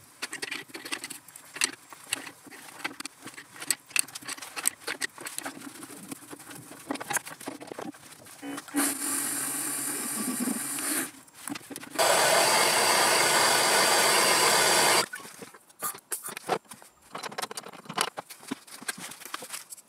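Metalworking sounds around a Warco WM180 hobby metal lathe: many sharp clicks and clinks of tooling and metal parts being handled, and a steady hiss for a couple of seconds about nine seconds in. About twelve seconds in comes a much louder steady rushing noise that lasts about three seconds, then scattered clicks again near the end.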